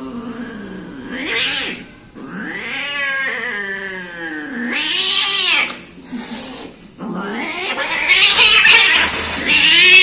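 Cats caterwauling in a territorial standoff: long, drawn-out, wavering yowls that rise and fall in pitch, with a short break about seven seconds in, then louder and harsher yowling to the end.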